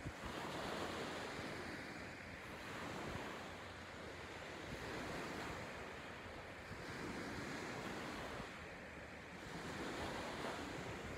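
Small waves washing on the beach: an even rushing noise that swells and fades every two to three seconds.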